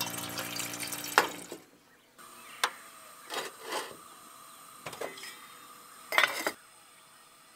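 Tap water pours into a metal saucepan and stops about a second and a half in. The pot then sits on a portable gas camp stove with a faint steady hiss, and there are several short metal clinks and knocks. The loudest comes near the end as the lid is set on the pot.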